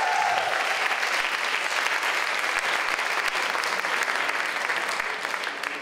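Audience applauding, with a shout carrying over the clapping at the very start; the clapping dies away near the end.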